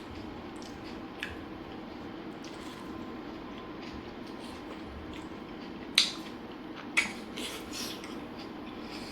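Close-up eating sounds: biryani being chewed, with a few sharp mouth smacks or clicks, the loudest two about a second apart near the end, over a steady low background hum.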